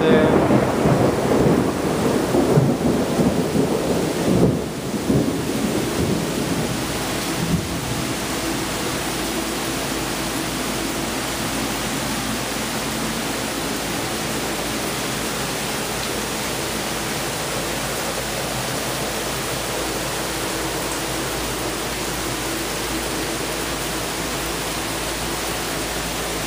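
Steady rain-like hiss, with louder, uneven rumbling over the first several seconds that settles into an even hiss about eight seconds in.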